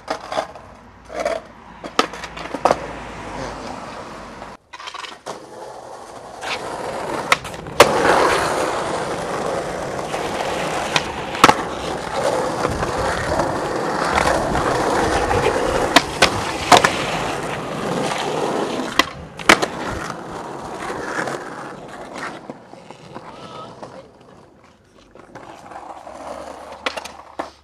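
Skateboard wheels rolling on pavement, with sharp clacks of the board hitting the ground scattered through. The rolling is loudest through the middle stretch and fades near the end.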